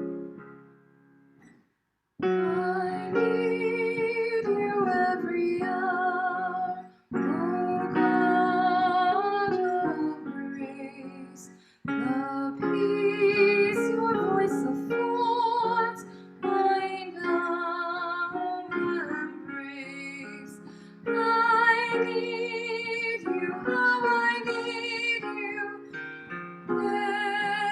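Music: a sung piece with a woman's voice, held notes with vibrato, over acoustic guitar, sung in phrases with short breaks. Another piece fades out in the first two seconds before the song begins.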